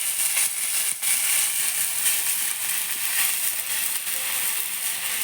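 Ground spice paste (onion, garlic, ginger, chilli and tomato) sizzling and crackling in hot oil in a pan, a little water just added to let the masala cook down.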